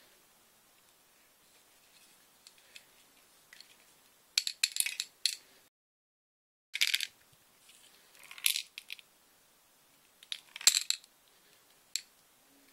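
Montana Gold acrylic spray can rattling in short bursts as it is shaken and handled, the mixing ball clacking inside. There are four bursts and a single click near the end.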